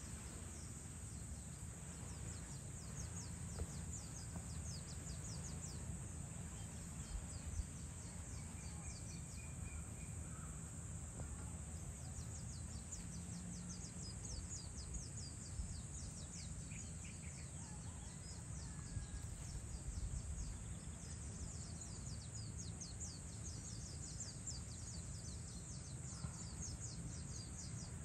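Evening outdoor ambience: insects chirping in fast, pulsing trills high in pitch, over a steady low rumble, with a few faint bird calls.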